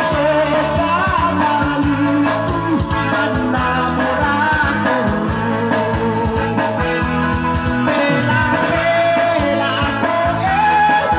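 A man singing into a microphone over amplified backing music with a steady beat, heard through PA loudspeakers; his voice wavers up and down in a sung melody.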